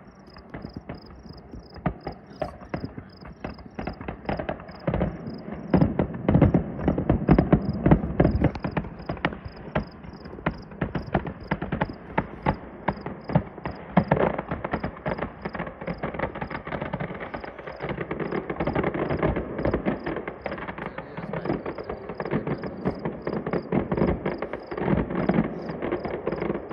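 Fireworks display going off in a rapid, continuous stream of pops, crackles and bangs, growing denser and louder about five seconds in.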